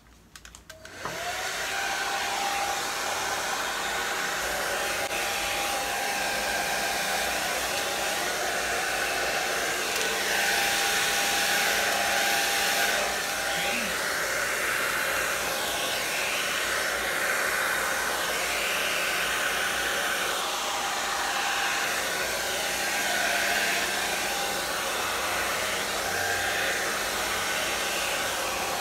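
Handheld hair dryer switched on about a second in, its whine rising quickly as the motor spins up, then running steadily as it blows on wet acrylic paint.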